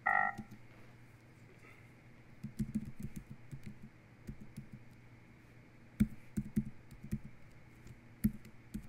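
Typing on a computer keyboard: quick runs of keystroke clicks in three bursts with short pauses between them, over a faint steady hum.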